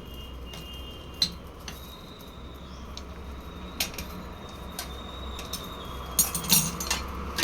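Metal parts of a scrapped electric water heater clinking and knocking as they are handled: single knocks about a second in and near four seconds, then a quick run of clinks near the end, over a low steady hum.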